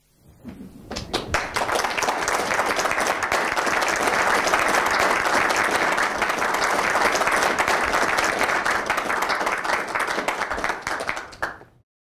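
Audience applauding, many hands clapping, swelling over the first second or so and holding steady before cutting off suddenly near the end.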